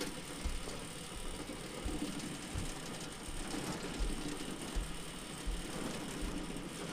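Plastic security-screening trays moving along a roller conveyor: a steady rattling noise with irregular low knocks.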